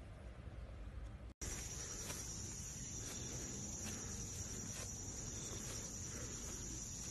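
Insects shrilling steadily on one high-pitched note, with a few faint soft rustles over it. A dull low room hum breaks off in a brief silence about a second in, and the insect sound starts right after.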